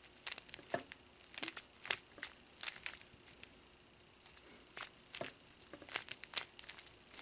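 Faint clicks and clacks of a plastic 3x3 Rubik's cube as its layers are turned through an algorithm, in irregular quick runs with a short pause a little past halfway.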